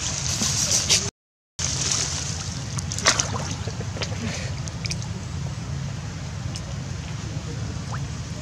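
Water sloshing and splashing as a baby macaque paddles through a shallow muddy pool, with a sharp splash about three seconds in, over a steady low hum. The sound cuts out completely for about half a second just after the start.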